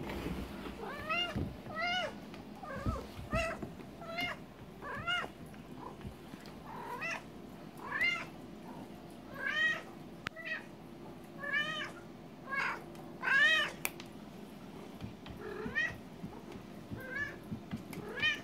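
Nebelung cat meowing over and over: short, rising-and-falling meows about one a second, with brief pauses between runs.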